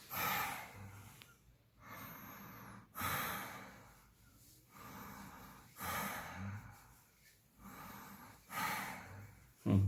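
A man breathing slowly and audibly, about four in-and-out breaths, each louder half followed by a softer one. It is breathing as in side-lying sleep, with the tongue kept forward so no snore builds up.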